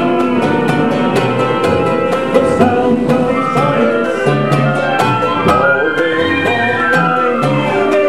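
Live band music: layered pitched instruments over blocky bass notes and a steady ticking beat, with notes sliding up and down in pitch about two thirds of the way through.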